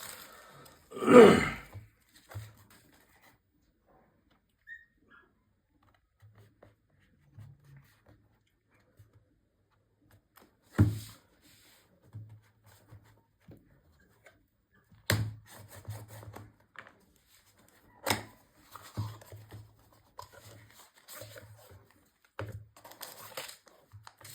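Intermittent tearing, rustling and sharp knocks of a camera's cardboard box and packaging being opened by hand, separated by quiet pauses. The loudest handling sound comes about a second in.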